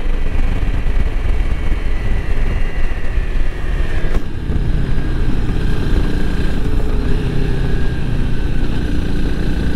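Single-cylinder engine of a Honda CRF300L Rally motorcycle running under way on a paved road, with heavy wind rumble on the microphone. The engine note falls over the first four seconds, a single click comes about four seconds in, and then the engine runs on steadily.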